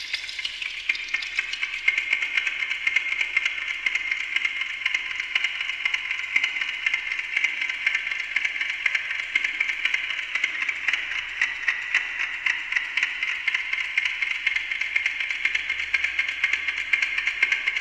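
Amplified ticking of a Westclox Silver Bell mechanical clock fed through a voltage-controlled digital delay, its delayed copies piling into a dense stream of overlapping ticks.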